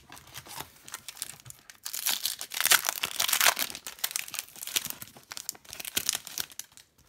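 Foil wrapper of a hockey card pack being torn open and crinkled by hand, a dense crackling that is loudest in the middle.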